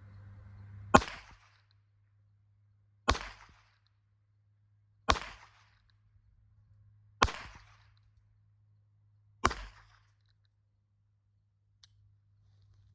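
Five single gunshots about two seconds apart, each with a short echoing tail.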